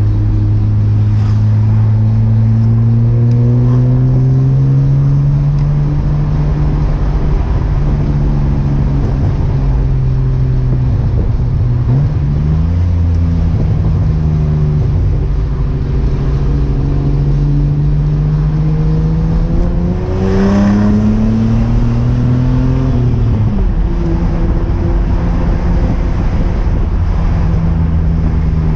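Chevrolet Omega's C30NE 3.0-litre 12-valve inline-six, naturally aspirated, driving on a 2.5-inch exhaust with two sport mufflers. The engine note rises slowly at first and then holds steady. It dips briefly about twelve seconds in, climbs again from about twenty seconds in, and drops off sharply a few seconds later.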